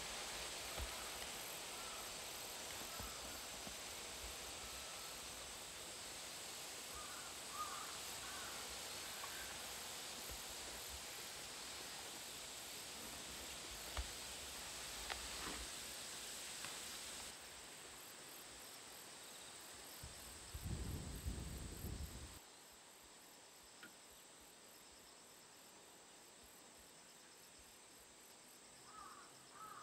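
Faint steady insect trilling from outside, with a few short bird chirps now and then. A brief low rumble about two-thirds of the way through, after which the insect sound is quieter.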